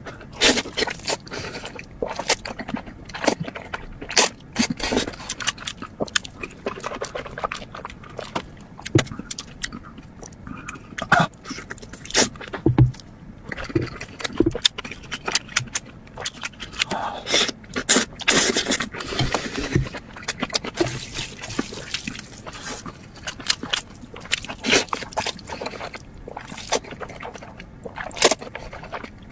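Close-miked mukbang eating sounds: chewing and mouth clicks that come irregularly, several a second in places.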